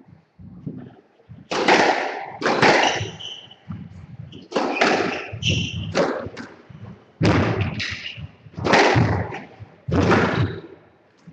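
Squash rally: the ball is struck by rackets and hits the court walls in a series of sharp cracks, about one a second, each ringing briefly in the enclosed court.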